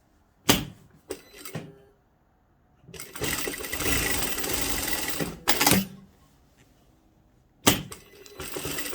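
Juki industrial sewing machine stitching in two runs: a sharp click and some light clatter about half a second in, a steady burst of stitching of about two seconds ending in a knock, then another click near the end as it starts sewing again.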